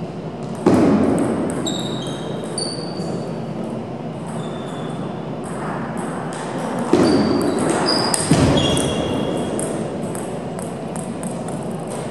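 Table tennis rally in a reverberant hall: the plastic ball clicks off the rubber bats and the table in quick, irregular succession, each hit a short, high ping. Three louder thumps stand out, about a second in and again around seven and eight seconds in.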